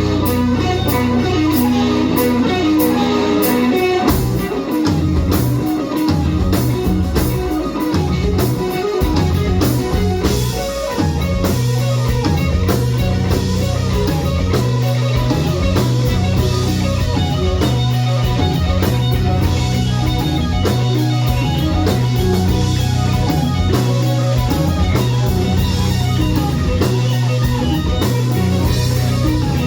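Rock band music with electric guitar and drum kit. About four seconds in, held low notes give way to a busier, driving rhythmic pattern.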